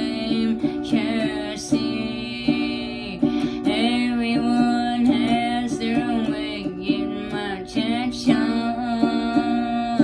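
Music: guitar playing steady plucked and strummed notes, with a voice singing over it.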